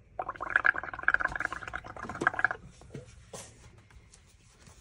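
Gurgling bubbling from air being blown through a straw into a tub of soapy paint, building a foam of bubbles. It runs for about two and a half seconds, then stops, and a couple of light taps follow.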